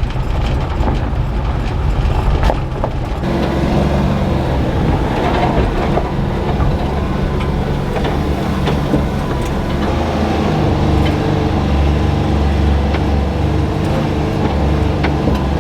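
Mini truck with a manual gearbox being driven, its small engine running steadily, with scattered knocks and rattles. The engine note changes about three seconds in and again around ten seconds, as with gear or speed changes.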